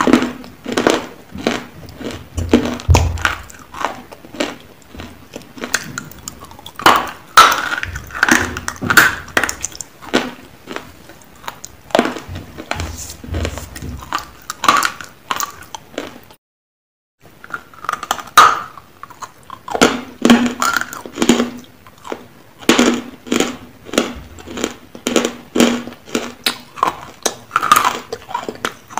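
Close-miked biting and crunching of dry chunks of edible clay: a fast, irregular run of crisp crunches and chewing. A brief dead silence falls about halfway through.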